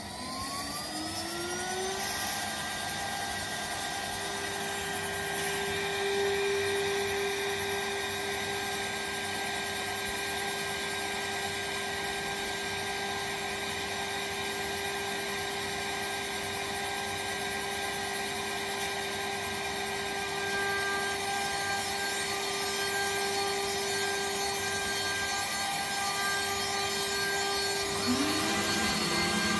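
Electric spindle motor of a home-built CNC router spinning up, its whine rising in pitch over about two seconds, then running steadily at speed. It is running unloaded, the cutter not yet in the work. Near the end a second rising tone joins in.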